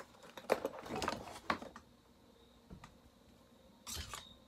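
Metal hand tool clicking and scraping against a chainsaw piston while its wrist pin is being driven out. There is a rapid cluster of strokes in the first two seconds, a single knock, and another short scrape near the end.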